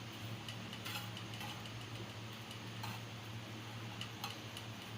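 A spoon clicking against a pan a few times at uneven intervals as melting sugar and desi ghee are stirred, over a steady low hum.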